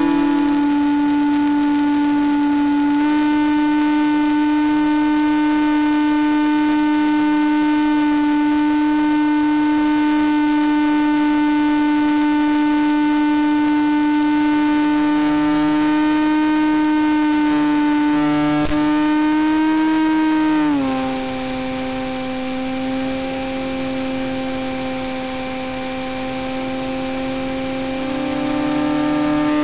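Mini Skywalker's electric motor and propeller running at a steady drone. About twenty seconds in the pitch glides down and the sound gets a little quieter as the throttle eases, and a high faint whine comes in on top.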